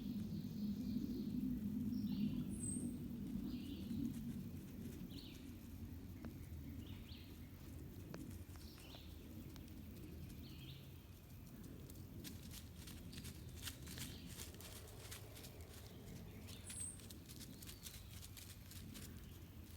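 Woodland sounds: a bird gives a short call over and over, about once a second, over a low rumble that is loudest in the first few seconds. The calls stop about halfway through and a run of dry crackling and rustling, like something moving through leaves and twigs, follows.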